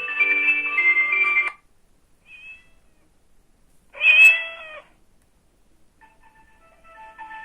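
Sagem MyX-6 mobile phone playing its ringtones through its small speaker: a polyphonic melody stops about a second and a half in, followed by a short faint chirp and then a single meow lasting under a second. A new polyphonic melody starts quietly near the end.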